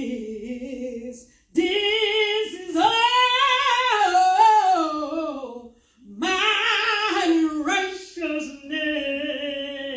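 A woman singing solo and unaccompanied into a handheld microphone, holding long gliding notes with vibrato. Her phrases break briefly about a second and a half in and again around six seconds in.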